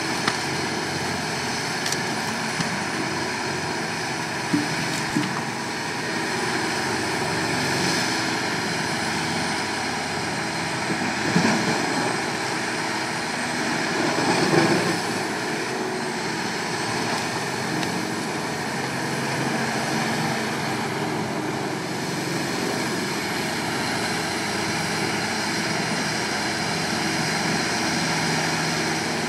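Heavy diesel machinery running steadily: a horizontal wood grinder and a Volvo tracked excavator with a log grapple working together. Two louder, rougher bursts come about eleven and fourteen seconds in.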